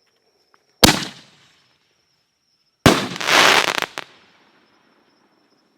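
A canister firework shell fired from a mortar tube: a sharp launch bang about a second in, then about two seconds later the shell breaks overhead with a loud report followed by about a second of dense crackling from its willow-with-crackling effect.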